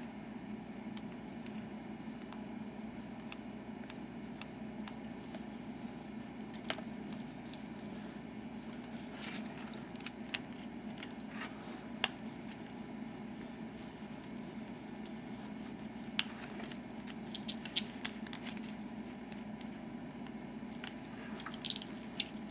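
Iron-on plastic covering film crinkling and ticking as a sock-covered covering iron is worked over a wooden rotor blade and the film is pulled taut. Faint, with scattered sharp ticks that come in small clusters about two-thirds of the way in and again near the end, over a steady low hum.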